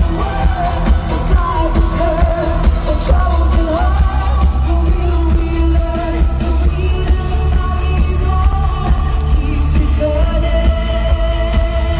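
Live symphonic metal band playing through an arena sound system: a woman's lead vocal sung over electric guitar and keyboards, with a very heavy, booming bass end, heard from among the audience.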